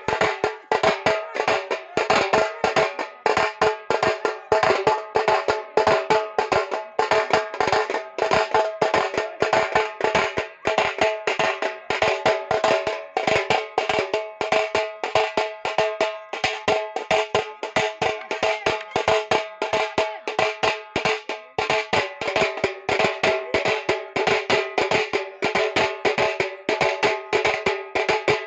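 Fast, steady drumming, several beats a second, over a steady droning tone.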